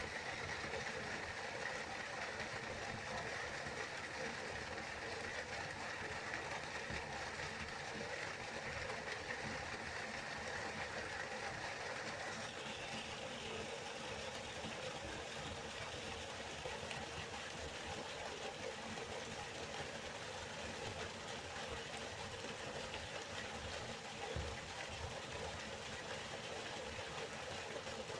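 River water rushing steadily, its tone shifting slightly about halfway through.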